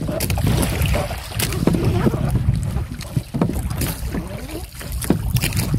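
Wind buffeting the microphone over the rush of the sea around a small outrigger boat, with scattered knocks and clicks as fishing gear is handled on board.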